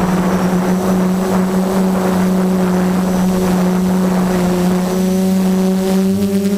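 Brushless motors and propellers of an F330 FPV quadcopter, heard from the onboard camera, humming at a steady pitch. A rushing noise rides over the hum for the first five seconds or so, then eases.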